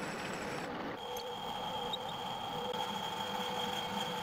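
Metal lathe running steadily, with a steady whine in its sound. About a second in, the tone of the running changes abruptly.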